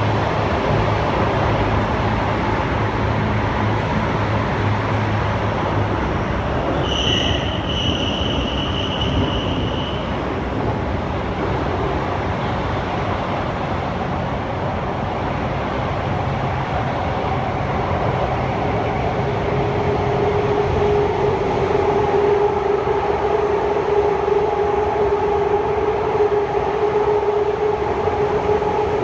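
Kawasaki C151 MRT train running between stations, a steady rolling rumble heard from inside the carriage. About seven seconds in, a high-pitched squeal sounds for about three seconds, and from about twenty seconds in a steady humming tone joins the rumble.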